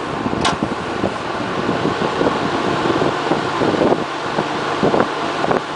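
GE box fan running on medium speed: a steady rush of moving air with a low motor hum, the airflow blowing across the microphone.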